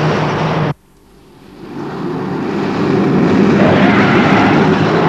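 Engines of a convoy of canvas-topped trucks running: a steady hum that cuts off abruptly under a second in, then engine noise swelling back up over the next two seconds or so as the trucks draw closer.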